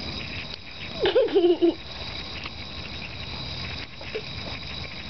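A thin stream of water running from a tap while a cat laps from it. About a second in, a short, loud vocal sound stands out above the running water.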